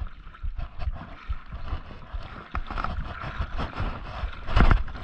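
Wind buffeting the microphone and shallow seawater sloshing around a wading angler, with irregular low thumps and one short, louder burst near the end.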